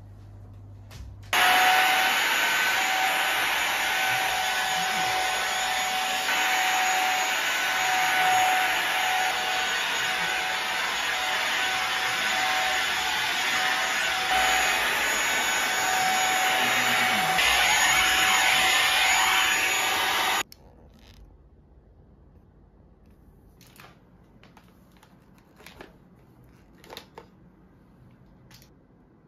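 Vacuum cleaner running with a steady motor whine, switched on about a second in and cut off abruptly some nineteen seconds later; a few faint knocks follow.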